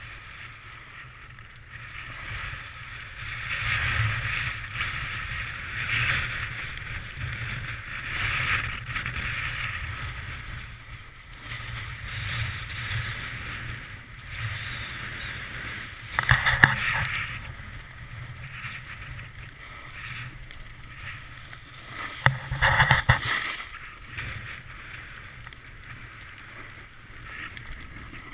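Snowboard scraping and hissing over packed snow while carving down the slope, the swish swelling with each turn every couple of seconds. Two louder, rougher scrapes come about halfway through and again about two-thirds of the way in.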